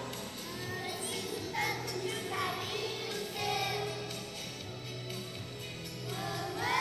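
A group of young children singing a song over backing music with a steady low beat.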